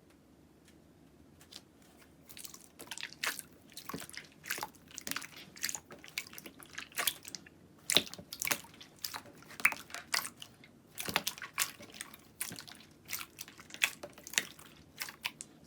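Slime being squeezed and pressed by hand, giving a dense run of irregular sticky clicks and pops that start about two seconds in.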